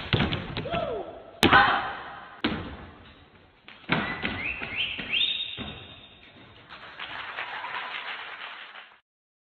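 Stage dance with stomping and percussion: loud, irregular thumps and knocks, with a few short rising whistle-like tones about five seconds in and a softer steady noise near the end before it stops.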